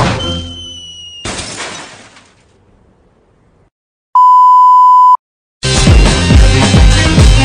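Sound-effect edit: a ringing crash and a noisy smash that dies away within about two seconds, then a loud, steady beep lasting about a second. About five and a half seconds in, loud electronic dance music with a heavy bass beat starts abruptly.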